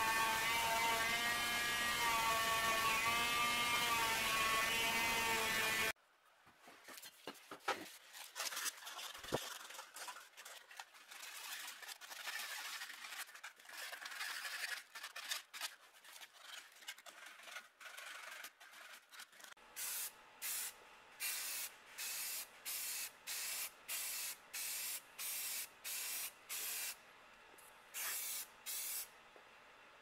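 A small electric motor whirs with a wavering pitch and cuts off about six seconds in. Clicks and scrapes of handling follow. From about two-thirds of the way through come about a dozen short, evenly spaced hisses of spray paint being applied, with a brief pause near the end.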